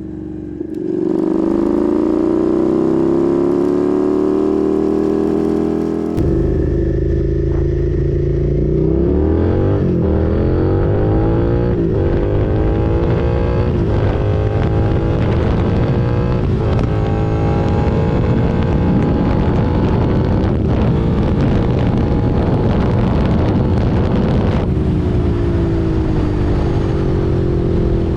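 Suzuki SV650's 645 cc V-twin engine accelerating under way, its pitch climbing and then dropping back at a series of gear changes. A heavy rumble of wind noise on the recorder sets in about six seconds in and stays under the engine.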